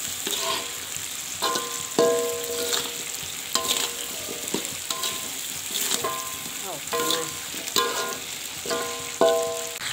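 Metal spatula scraping and knocking against a wok during stir-frying, each stroke ringing briefly, about once or twice a second, over a steady sizzle of hot oil.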